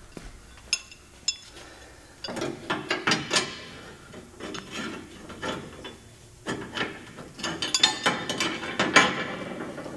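Hand ratchet clicking in quick bursts as it works nuts on a pickup's rear leaf-spring hardware, with a few single metal clicks in the first second or so.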